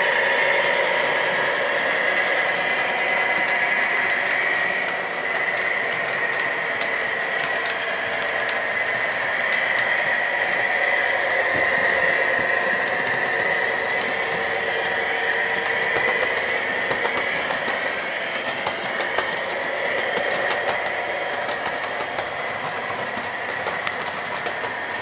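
Model OO-gauge A Class diesel locomotive hauling coaches around a layout, running with a steady high whine. From about two thirds of the way through, many small clicks come from the wheels crossing rail joints and points.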